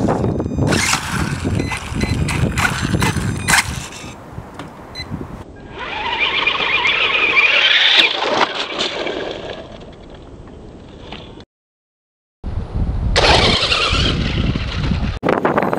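Electric 1/18-scale 4WD RC buggy driving off-road: motor whine and wheel noise that swell and fade as it speeds up and slows. The sound drops out completely for about a second two-thirds of the way through.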